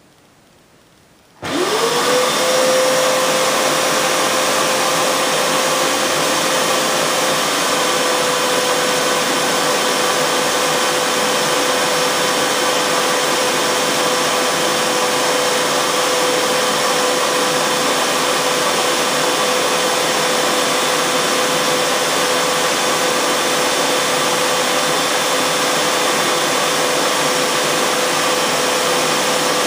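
VAX Rapide Ultra 2 carpet washer switched on about a second and a half in: its motor spins up with a fast-rising whine that settles into one steady pitch over loud rushing air, and the machine runs on steadily at about 77–78 dB on a sound meter.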